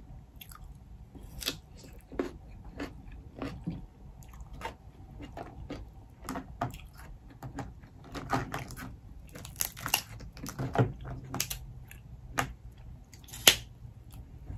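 Chewing and crunching, with sharp cracks and snaps of snow crab leg shells being broken apart by hand. The cracks cluster in the second half, and the loudest one comes near the end.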